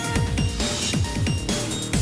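Electronic background music with a fast, steady beat and repeated falling bass sweeps.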